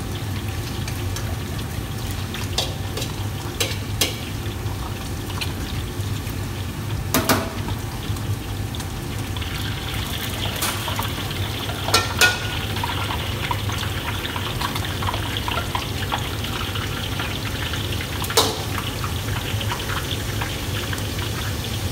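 Commercial gas wok range running: a steady low rumble of the burners under frying, with a few sharp clanks of a steel ladle against a wok, loudest about 7 and 12 seconds in. A higher hiss joins about ten seconds in.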